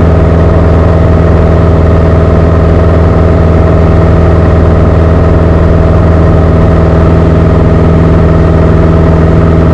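Beechcraft Sundowner 180's four-cylinder Lycoming engine and propeller droning steadily at climb power, heard from inside the cabin.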